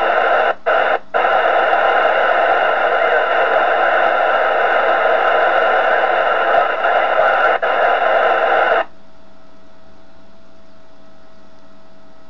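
FM radio receiver hissing with loud static on the ISS voice downlink between transmissions. The hiss drops out twice in the first second or so, then cuts off suddenly about nine seconds in, leaving a faint steady tone.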